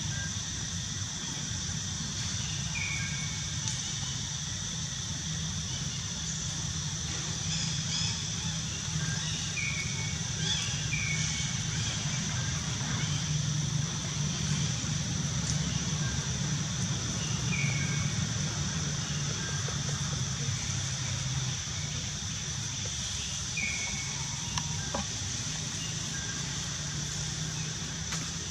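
Outdoor ambience: a steady high-pitched drone under a low rumble, with a handful of short high chirps scattered through.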